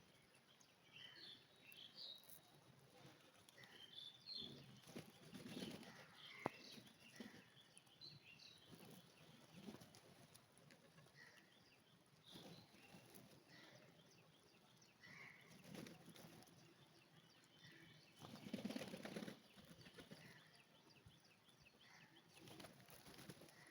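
Faint bird sounds: scattered short chirps and soft flapping of wings, with a louder flurry of wingbeats about three-quarters of the way through.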